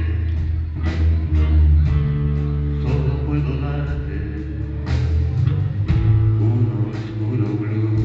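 A live blues band playing: electric guitars over a bass line and a steady drumbeat.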